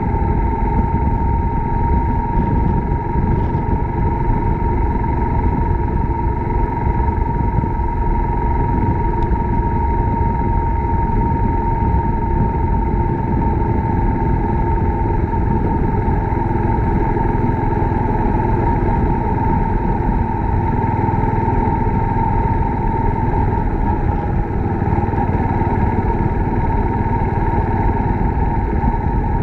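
Suzuki Grasstracker Big Boy's single-cylinder engine running steadily while the motorcycle rides along, mixed with rushing wind noise and a steady high-pitched tone.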